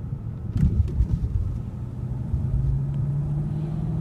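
2015 Hyundai Equus's V8 engine pulling under acceleration over road rumble, its tone rising steadily and dropping back at a gear change near the end. A few short knocks come about a second in.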